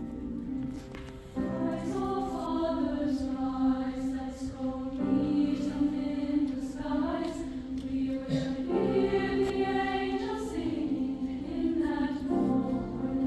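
Girls' choir singing. The full choir comes in about a second and a half in, over a low note held throughout.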